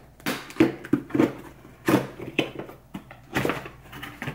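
Box being handled and opened by hand: a string of irregular knocks, taps and rustles, the strongest about half a second in, near the middle and about three and a half seconds in.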